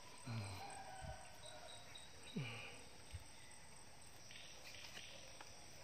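Faint night-time insect chorus with crickets chirping. Two short low falling sounds, about a third of a second and two and a half seconds in, and a couple of soft thumps.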